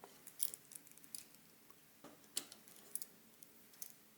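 Faint, irregular light clicks and ticks of small-parts handling as the screws are taken out of an AKAI EWI 4000s wind controller's plastic shell.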